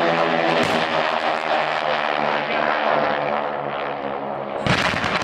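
Formation of North American AT-6 Texans with Pratt & Whitney R-1340 radial engines and propellers, a steady drone passing low overhead. Near the end a loud blast from a pyrotechnic wall of fire breaks in.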